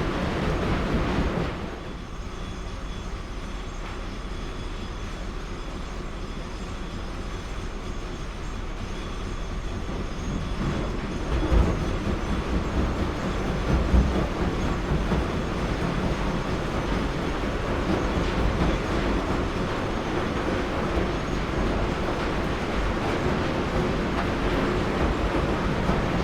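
Heavy machinery running with a steady mechanical rumble and clatter. It drops in level about two seconds in, builds again around ten seconds, and has two heavy knocks near the middle.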